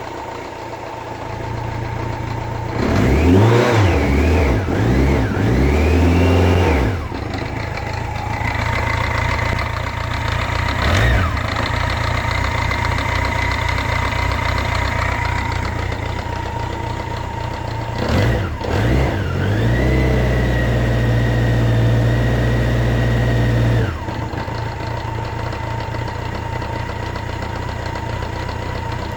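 Car engine idling, revved in several quick blips about three seconds in, then revved again about eighteen seconds in and held at raised speed for some seconds before dropping back to idle. A thin steady tone runs over the engine throughout; the owner asks whether this points to a bad alternator.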